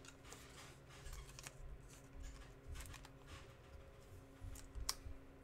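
Faint handling of chrome trading cards: soft, scattered clicks and light knocks as the cards are slid and flipped against each other in the hand, over a low steady hum.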